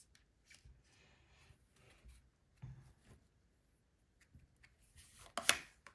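Faint rustling and light clicks of tarot cards being handled, then a sharp slap as a card is laid down about five and a half seconds in.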